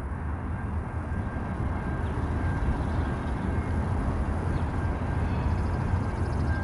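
Freight train rolling past: a steady low rumble of wheels on the rails, with a faint constant high squeal over it.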